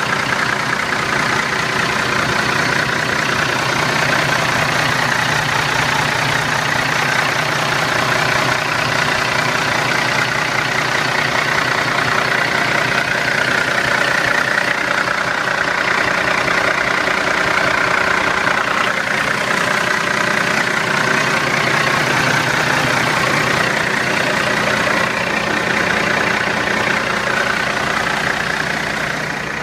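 2011 Kenworth T660 heavy truck's diesel engine idling steadily, heard up close in the open engine bay.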